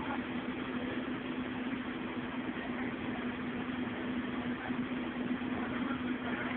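Scania OmniCity bus's five-cylinder 9-litre diesel engine idling with a steady hum, heard from inside the passenger saloon.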